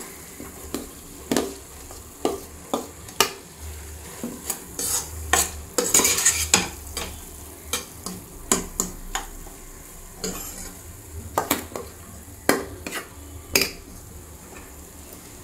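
A metal spoon scoops cooked basmati rice from a steel bowl and spreads it over mutton gravy in a pot. It makes irregular clinks and scrapes against the bowl and pot, busiest about five to six seconds in. A faint sizzle comes from the gravy on the heat.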